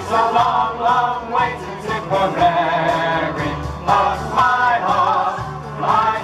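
A mixed group of male and female voices singing a wartime popular song together over backing music with a steady bass line.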